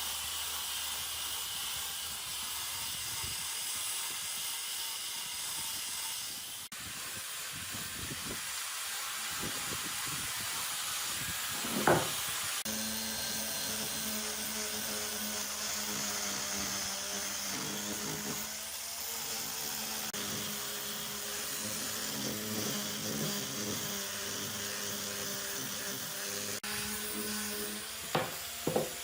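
Workshop noise: a steady hiss with a low hum that sets in about halfway through, and a sharp knock of wood on wood, with two more knocks near the end.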